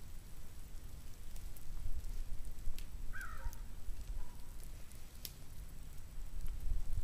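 Steel spade digging into leaf-covered woodland soil: scattered scrapes and sharp clicks of the blade and crunching leaves over a steady low rumble, with a brief chirp about three seconds in.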